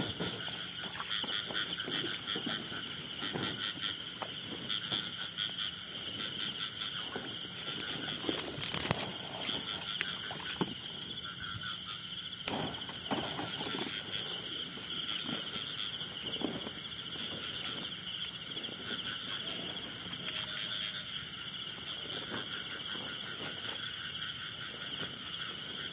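A night chorus of frogs and insects calling steadily, a dense pulsing trill. Scattered rustles and footsteps come from someone walking through grass and weeds.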